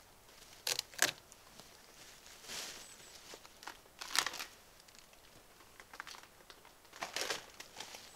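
Papery birch bark being torn and peeled off by hand: a handful of short, crinkly tearing rips a second or more apart, the two loudest about a second in.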